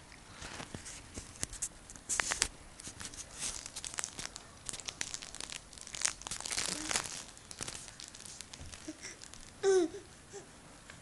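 Rustling and crinkling as a baby grabs and mouths a soft toy cube on the bedding, with scattered small clicks. About ten seconds in, the baby gives one short babbling sound that falls in pitch.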